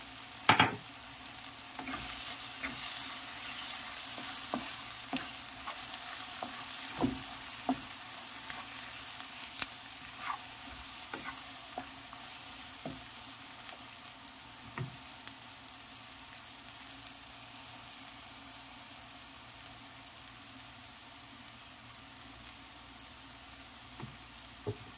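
Onion, garlic, tomato and ground spices sizzling steadily in oil in a pan, with scattered clicks and knocks of a utensil against the pan as the mix is stirred; the loudest knock comes about half a second in.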